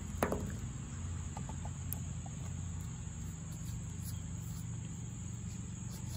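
Backyard background sound: a steady low rumble with a faint, steady high tone over it. There is a short tap just after the start and a few faint ticks about a second and a half in.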